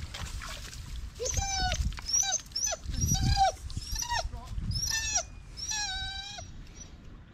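Dog whining and crying: a run of about six high, pitched whines, each under a second, with low rumbling noise underneath.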